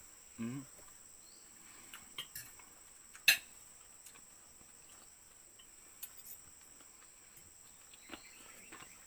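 Insects, likely crickets, trilling as a steady high drone, with a few sharp clinks of tableware during a meal; the loudest clink comes about three seconds in.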